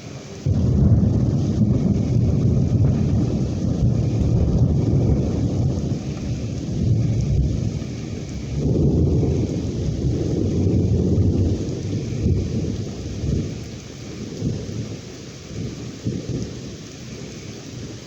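Long rolling thunder over steady rain. The rumble breaks in sharply about half a second in, swells again a little past the halfway point, then dies away, leaving the rain hiss.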